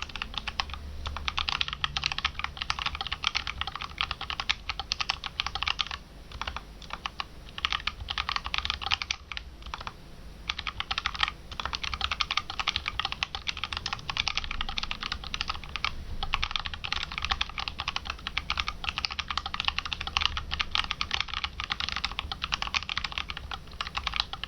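Typing on a mechanical keyboard with Outemu Purple 62g tactile switches lubed with dielectric/silicone grease: fast, continuous key clacks in runs, with brief pauses a few times.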